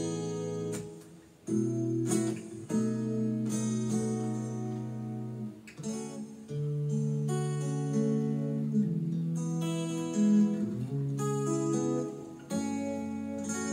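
Acoustic guitar chords strummed and left to ring, played through a Bose S1 Pro portable PA speaker, with a short pause about a second in.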